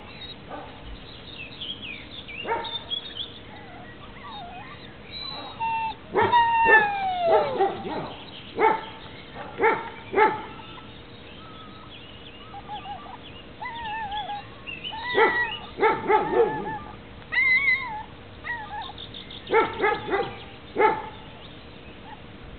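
Dogs barking in short clusters, with high yips and whimpering squeals between the barks and one long falling whine about six seconds in.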